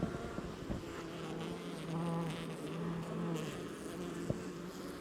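Honeybees buzzing around the hive, a wavering hum that swells and fades as bees fly near, with one small click near the end.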